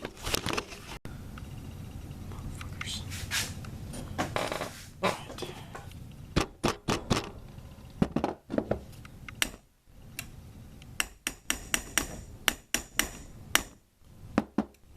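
Small hammer tapping a steel taper pin into an AR-15's A2 front sight base: sharp metallic taps in irregular bursts, some with a brief high ring.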